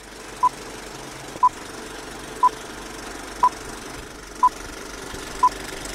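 Film-leader countdown beeps: six short, identical high beeps exactly one second apart, over a steady background noise.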